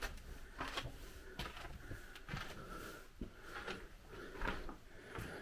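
Slow footsteps and scuffs on a hard floor, about one step every three-quarters of a second.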